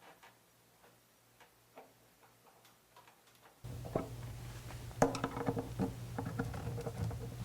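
Light, scattered clicks and ticks of a number 2 posi screwdriver working the adjustment and mounting screws of a Blum Compact face frame hinge while the cabinet door's height is set. About three and a half seconds in, a steady low hum comes in and the clicks grow louder.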